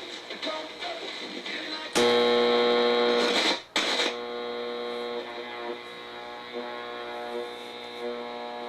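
A loud electric buzz from the Yorx clock radio comes on suddenly about two seconds in and holds steady. It cuts out for a moment at about three and a half seconds, then carries on as a quieter steady hum.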